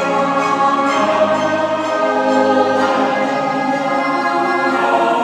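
Background orchestral music with a choir, sustained chords changing slowly.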